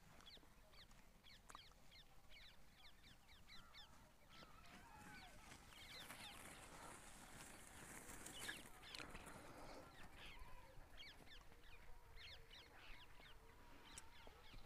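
Faint bird calls: many short, falling chirps repeated in quick runs.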